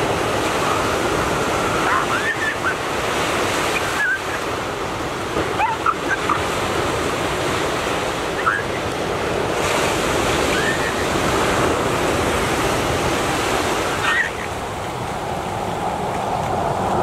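Steady wash of ocean waves and surf at the shoreline, with a few brief, faint high-pitched calls scattered over it.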